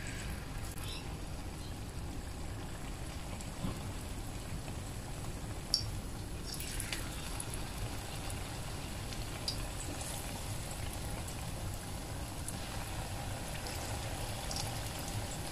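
Batter-coated quail eggs frying in shallow hot oil in a frying pan: a steady sizzle with scattered sharp pops and crackles.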